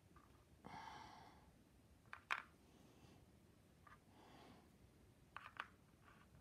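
Near silence: a soft breath about a second in and a few faint, sharp clicks, the loudest about two seconds in and a pair near the end.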